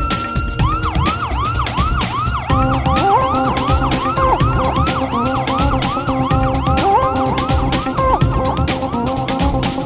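Electronic police siren: a wail that shifts about half a second in into a rapid yelp, sweeping about three times a second, over a steady pulsing beat.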